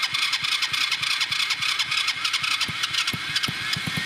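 Small go-kart engine being cranked over by its electric starter with no fuel in it: a steady whir with even compression thumps several times a second. It is turning over to test whether a spark plug shimmed into a stripped plug hole holds.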